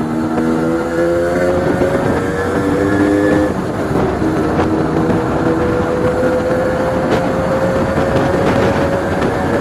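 Two-stroke Honda H100S motorcycle running with its exhaust baffle (dB killer) removed, loud and raw. The engine pitch climbs and drops back twice in the first few seconds as it shifts up, then rises slowly in a long pull.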